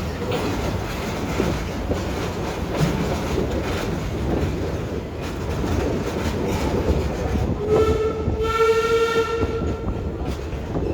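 Open-car park railway train running along the track with a steady rumble and rail clatter. About three-quarters of the way through, the locomotive sounds a single steady blast of about two seconds.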